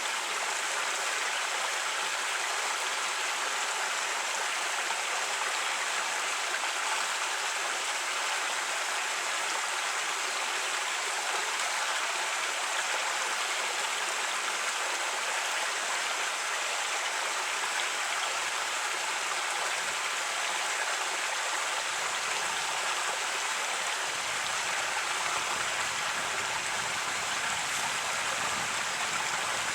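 Creek water flowing steadily over rocks, an even, unbroken rush of running water.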